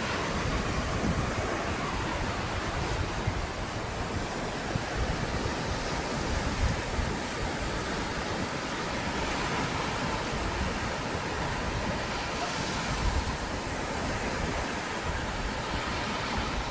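Steady rushing noise with wind buffeting the microphone in uneven low gusts, and a faint steady high tone above it.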